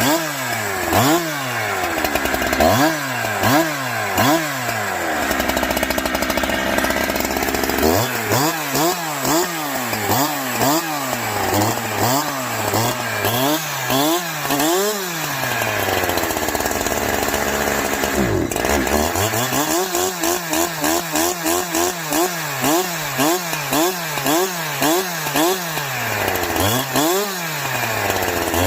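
Farmertec Holzfforma G372XP chainsaw, a two-stroke clone of the Husqvarna 372XP, running and revved up and down about once a second. It holds steady at high revs for a couple of seconds around six seconds in and drops briefly near the 18-second mark. The saw is freshly assembled and on its first runs.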